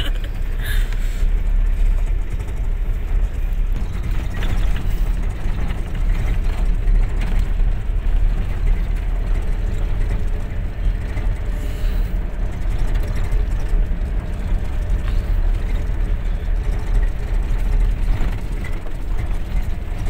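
A vehicle driving along a gravel road, heard from inside the cab: a steady low rumble of engine and tyres that keeps up without a break.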